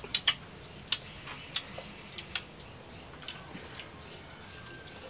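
Wet mouth clicks and smacks of people biting and sucking on santol fruit: short, sharp clicks at irregular intervals, about half a dozen.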